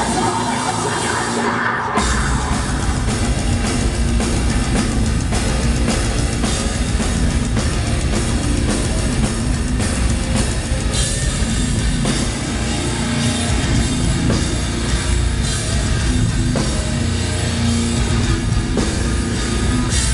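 Live heavy metal band playing loud, with electric guitars and a drum kit; the full band comes crashing in about two seconds in.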